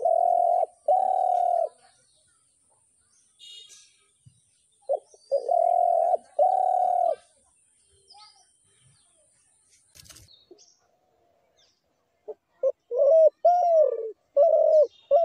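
Spotted dove cooing: three phrases, each a short note followed by longer low coos, the last phrase with more and shorter notes. Faint chirps of small birds in the pauses.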